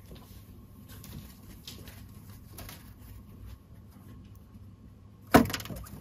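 Faint scuffling, then one sharp knock about five seconds in, as a gecko lunges at a live banana cricket in its glass tank.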